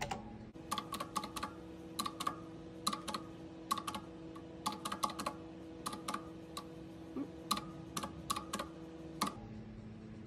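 Keys of a calculator with round typewriter-style keycaps clicking as numbers are punched in, in quick runs of presses with short pauses between.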